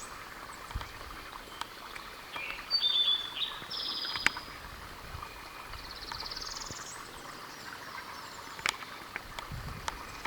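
Songbirds singing. A cluster of short, clear high notes comes between about two and four seconds in and is the loudest part. A buzzy trill rising in pitch comes about six seconds in, with scattered faint clicks in the background.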